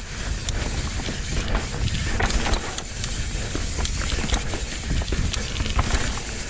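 Downhill mountain bike riding fast over a raw, rooty dirt trail: a steady low rumble of tyres on the ground, with frequent sharp clatters and knocks as the bike hits roots and rocks.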